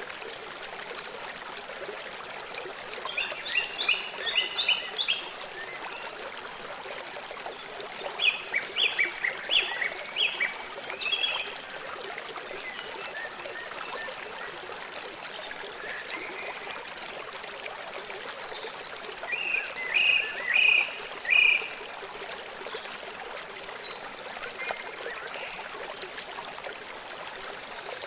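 Steady rush of a forest stream, with a small songbird giving short bursts of quick, high chirps three times and faintly twice more.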